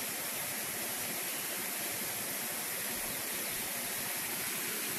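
Steady, even hiss of water noise with no distinct events.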